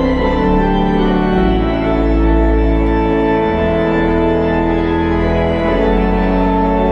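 Kimball pipe organ playing slow sustained chords over a deep pedal bass, the harmony shifting every second or two.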